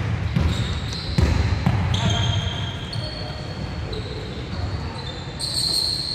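Basketball bouncing on a hardwood gym floor, with a few sharp thuds in the first two seconds amid the general noise of play.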